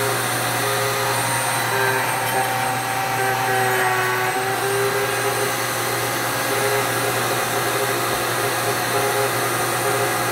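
Router in a router table running steadily at speed with a 3/4-inch straight bit, a wooden block slid by hand across the bit to plane its face flat. Loud and steady, with a high whine over the motor noise.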